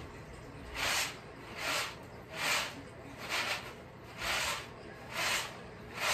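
Peanuts swishing and rattling in a round woven bamboo winnowing tray as it is tossed over and over to winnow off the husks, about seven swishes at a steady pace a little under a second apart.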